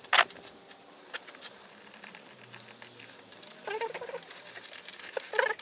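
Hands working a rubber intake hose and its worm-drive hose clamp with a screwdriver: a sharp click just after the start, scattered small clicks and scrapes, and short squeaky creaks of rubber and metal later on.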